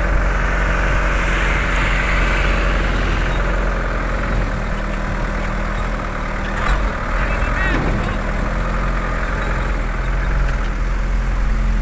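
Truck's diesel engine running steadily at low speed, heard from inside the cab.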